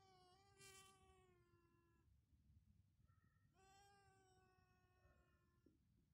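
Faint, thin whine of a held mosquito buzzing its wings: a steady tone at one fixed pitch, in two stretches of about two seconds each with a pause of about a second and a half between.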